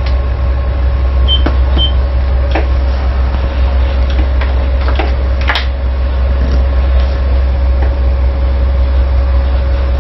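Tugboat's engines running, heard inside the wheelhouse: a steady low rumble with a steady whine over it. A few light knocks, and two short high beeps about a second in.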